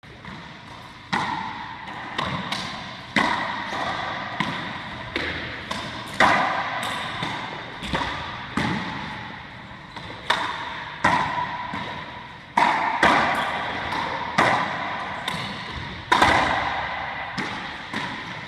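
Racquetball rally: the hollow rubber ball cracking off the racquets, front wall and wooden floor, sharp hits about once a second at an uneven pace, each ringing out in a long echo around the enclosed court.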